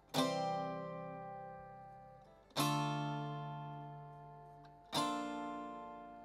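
Background music: an acoustic guitar strums three slow chords, each left to ring out and fade before the next.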